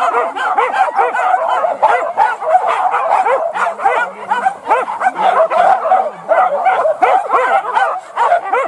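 A pack of leashed boar-hunting dogs yelping and whining excitedly in a dense, overlapping chorus, several high yelps a second without a break, eager to be let loose on the chase.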